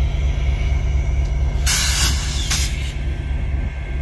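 EMD F40 diesel-electric locomotive's V16 two-stroke diesel running steadily while standing, a pulsing low drone. About two seconds in, a sharp hiss of released compressed air lasts about a second and cuts off abruptly.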